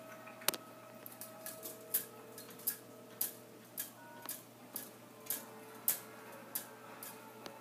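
Horizontal window-blind slats clicking and tapping as a kitten bats at them with its paw: a dozen or so sharp ticks at uneven intervals, the sharpest about half a second in.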